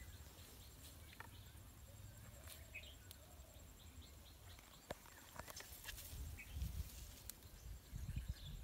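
Quiet outdoor ambience: a faint low rumble with scattered soft clicks and a few short faint chirps, and some louder low thumps in the last couple of seconds.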